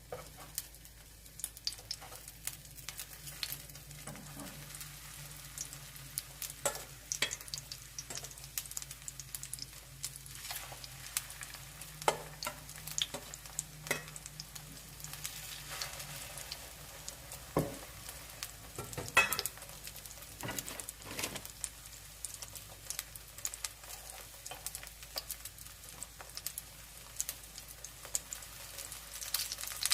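Zucchini pancakes frying in oil in a pan, a steady sizzle with constant crackling, and a few sharper knocks now and then.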